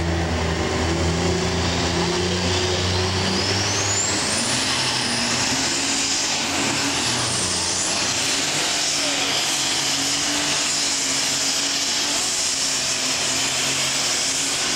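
Unlimited super stock pulling tractor's multi-turbocharged diesel engine running at full power as it pulls the sled down the track. A high turbocharger whine climbs steeply over the first few seconds, then holds high over the dense engine noise.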